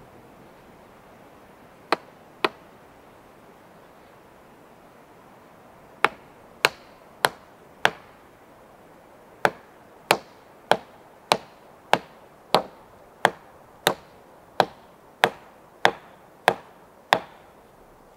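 Sharp blows of a hand tool striking wood: two strikes, then a run of four, then a steady run of about thirteen at roughly one and a half a second, stopping shortly before the end.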